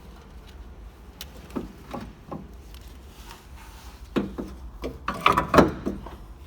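A series of knocks and clunks, as from hard objects being handled and set down: three light knocks a little under two seconds in, then a louder, busier cluster of clunks in the second half.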